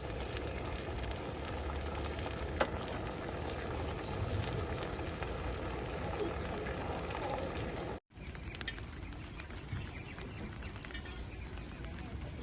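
Steady rain falling, a dense patter with scattered sharper drop ticks; it cuts briefly about eight seconds in and carries on a little quieter.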